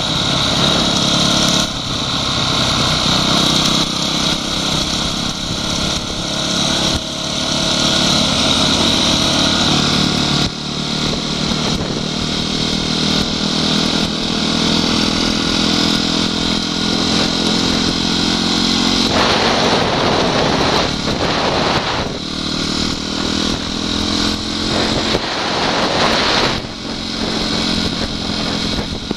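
Honda CRF250X enduro motorcycle's single-cylinder four-stroke engine running at a steady cruising speed, heard from the rider's own helmet camera with wind hiss over the microphone. Two louder stretches of rushing noise come in the second half.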